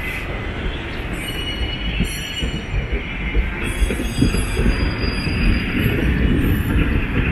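Low-floor tram rolling past on its street track with a steady low rumble. Faint high-pitched wheel squeal comes and goes from about a second in.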